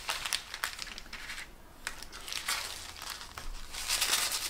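Clear plastic shaker bag crinkling and crackling in the hands as a paper backing card is worked into it, in irregular crackles with a quieter spell about halfway through.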